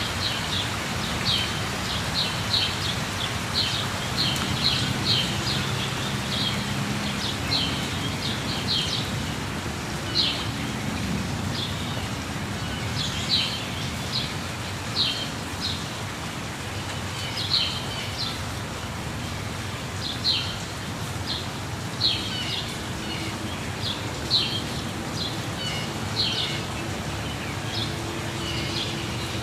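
Steady rush of a waterfall with birds chirping over it, short high chirps coming again and again at irregular intervals.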